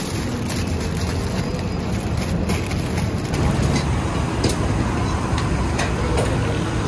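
Steady low rumbling noise of a busy outdoor street-food stall, with a few sharp clicks in the second half.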